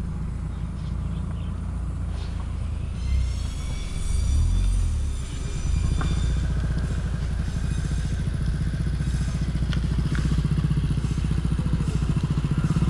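Motorcycle engines running at road speed, a steady pulsing rumble that grows louder in the second half as a following motorcycle closes in. About three seconds in, a thin high whine sounds over it for a couple of seconds.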